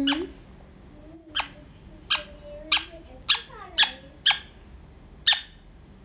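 Rose-ringed parakeet making short kissing smacks while being petted: about eight quick smacks over six seconds, with a soft low murmur between some of them.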